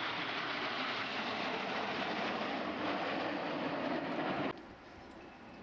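Aircraft flying past at an airshow: a loud, steady rush of engine noise that cuts off suddenly about four and a half seconds in, leaving a faint background.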